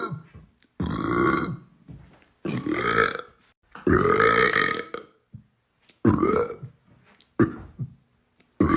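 A run of loud human burps, about six in a row, each lasting around a second with short gaps between, the last starting just before the end.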